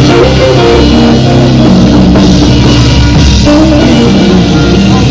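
Live band playing loud, steady music with drum kit, bass and guitar.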